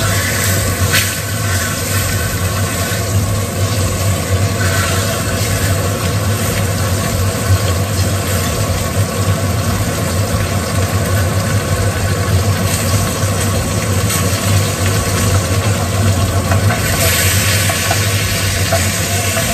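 Food sizzling as it fries in a pan, over a steady low hum; the hiss grows louder about seventeen seconds in.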